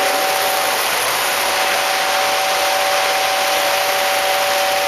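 Lionel model train horn sounding a steady two-note chord, held unbroken, over the continuous rolling hiss of toy trains running on the track.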